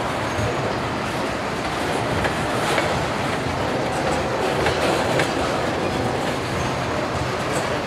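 Freight cars rolling past, their steel wheels making a steady rumble on the rails with irregular clicks over the rail joints.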